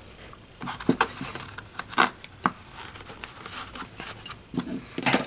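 Small hand tools being handled and tucked into a fabric tool-kit case: scattered light clicks, scrapes and rustles, about one every second.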